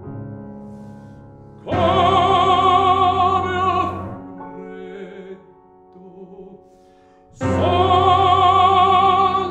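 Baritone singing a classical art song with piano: two long, loud held notes with vibrato, the first about two seconds in and the second near the end, with soft piano chords between them.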